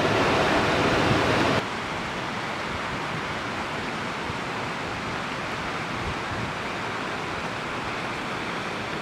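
Shallow river rushing over rocks, a steady hiss of water that drops suddenly to a quieter level about a second and a half in, then runs on evenly.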